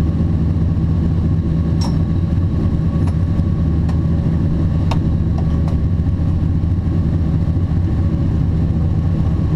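Twin-turbo LS1 V8 in a Nissan Silvia drift car idling steadily while the car sits stationary, with a few faint clicks.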